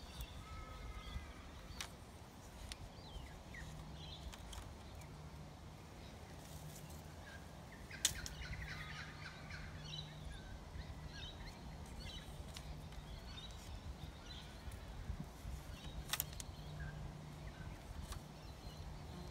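Quiet outdoor ambience with birds chirping and calling on and off, and a faint low hum that comes and goes. Sharp knocks break through, the loudest about eight seconds in and another about sixteen seconds in.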